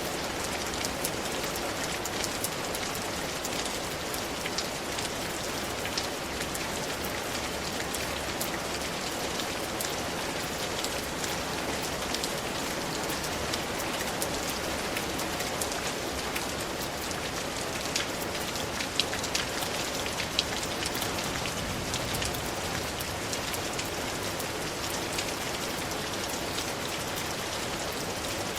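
Steady rain falling, with a constant hiss and many individual drops ticking sharply on a hard surface.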